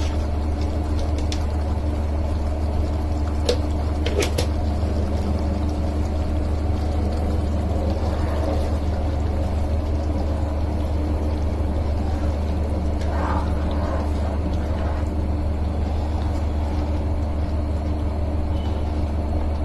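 A ladle stirs thick paneer and pea gravy in a pan, with soft wet stirring sounds and a couple of sharp clicks against the pan about three and four seconds in, over a steady low machine hum.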